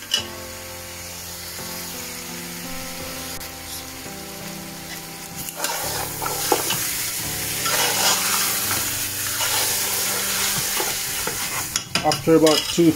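Lamb chops and spice masala sizzling in oil in an aluminium pot while a metal spoon stirs and scrapes through them, the spices frying. The sizzle grows louder about halfway through, and there are a few sharp clatters of the spoon against the pot near the end.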